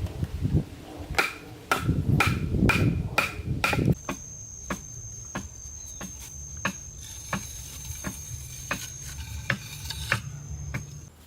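Repeated hand-tool strikes, heavy and thudding for the first few seconds, then lighter and sharper at about two a second. From about four seconds in, a steady high-pitched insect call runs behind them.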